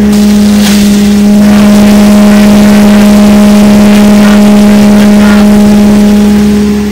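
Hammer mill feed grinder running at a steady, constant pitch, driven by the tractor behind it, with brief cracking as ears of corn are fed into it and ground.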